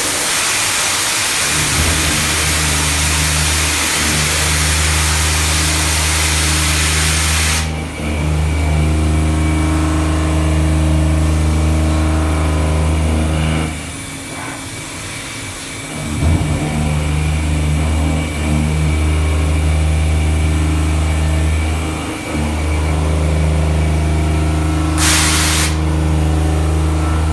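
CNC milling machine cutting a pocket: a steady machine hum that drops away for a couple of seconds about halfway through and dips briefly twice more. A loud hiss sounds over the first seven or eight seconds and again briefly near the end.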